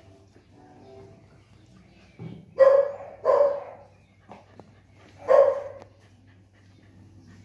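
Small dog barking: two short barks about two and a half seconds in, close together, and a third about five seconds in.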